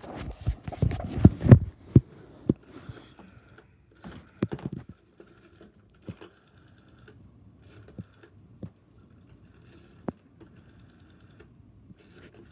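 Rotary dial of a 1980 GTE Automatic Electric Princess-style telephone being wound and released, clicking as it spins back to pulse out each digit. A dense run of clicks comes in the first two seconds, another burst about four seconds in, then scattered single clicks.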